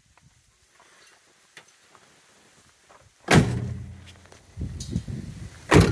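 Doors of a 2008 Ford van slammed shut twice, about two and a half seconds apart. Each is a sudden loud thud, and the first rings on briefly as it dies away.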